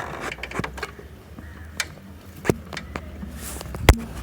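Scattered clicks and knocks of tools and parts being handled during a motorcycle repair, the sharpest knock near the end.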